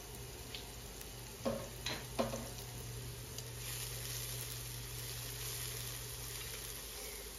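Chopped red onion and garlic sizzling steadily in oil in a non-stick pan. They are stirred with a silicone spatula that knocks against the pan three times around two seconds in.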